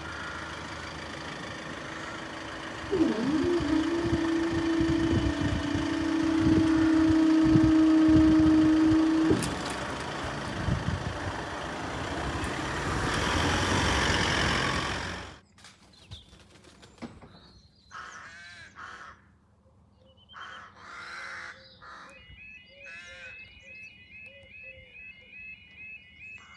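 A Class 158 diesel multiple unit passing over the level crossing, with a loud rush and rapid clattering from its wheels, and a steady held tone for several seconds. The train noise cuts off abruptly a little past halfway. Quiet outdoor sound follows, with crows cawing and other bird calls.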